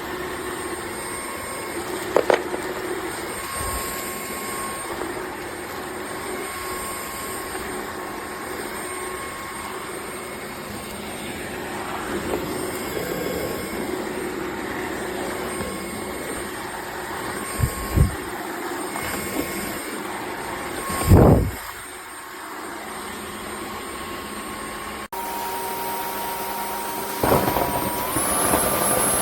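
Dreame H12 Pro wet-dry vacuum mop running, a steady motor whine and air rush with a few knocks as the head is moved. Near the end the motor's whine steps up to a higher pitch.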